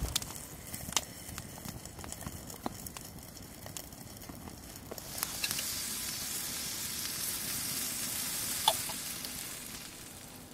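Cooking over a wood fire: scattered crackling pops, then about halfway through a sizzling hiss swells up and holds for several seconds before fading, with one sharp pop in the middle of it.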